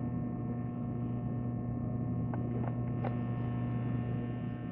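Steady electrical mains hum, with a few faint light clicks about two to three seconds in.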